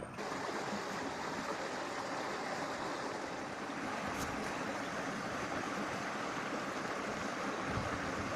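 Steady rushing noise, even and unbroken, with no distinct events in it.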